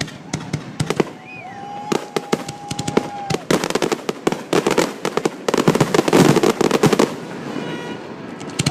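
Aerial fireworks going off in rapid, irregular bangs and crackles, with a dense volley of explosions about five and a half to seven seconds in. A long, steady high tone sounds under the bangs about two to three seconds in.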